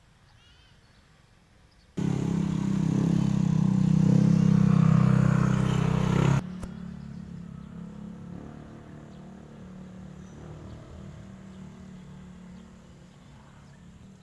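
A vehicle engine running with a steady low hum. It comes in suddenly and loud about two seconds in, drops abruptly to a quieter hum after about four seconds, and slowly fades.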